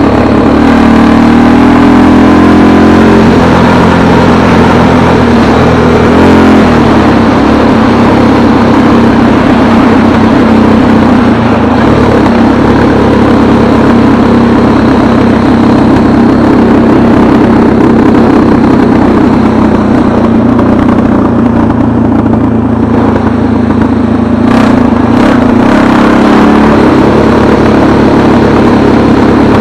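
An engine running loud and close, its pitch shifting during the first few seconds, then holding steady.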